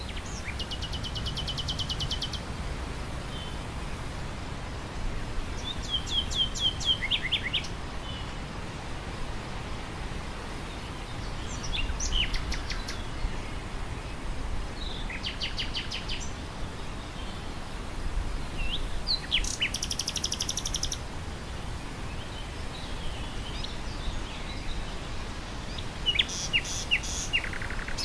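Common nightingale singing about six short phrases of fast repeated notes and trills, a few seconds apart, over steady wind blowing through grass.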